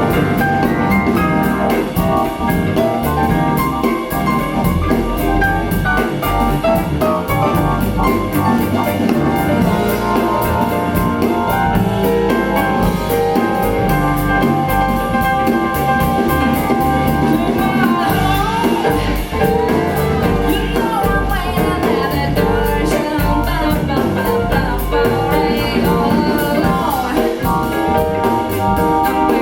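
Recorded music with a drum kit keeping a steady beat, played back through KEF LS50 bookshelf speakers.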